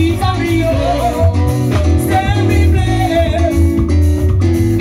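Live band playing a song, with a sung vocal line over a heavy, steady bass line and drums, loud through the band's speakers.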